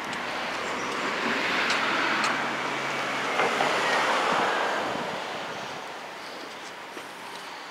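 Outdoor street noise: the rush of a passing vehicle swells over a few seconds and then fades, with a few faint clicks.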